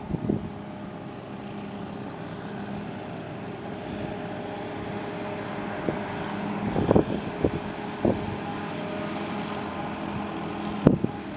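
Claas Jaguar self-propelled forage harvester chopping grass for silage, its engine and chopper a steady drone that grows slightly louder as it comes closer, with the John Deere tractor hauling the trailer alongside. A few brief thumps in the middle.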